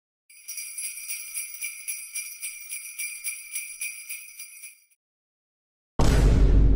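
Sleigh bells shaken in a steady rhythm, about three shakes a second, stopping nearly five seconds in. After a second of silence, a sudden deep boom about six seconds in is the loudest sound, fading slowly.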